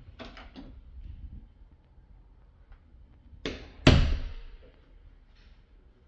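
Interior panel door being handled by its lever handle: light latch and handle clicks in the first second, then two sharp door knocks close together about three and a half seconds in, the second the louder, each with a short ringing decay.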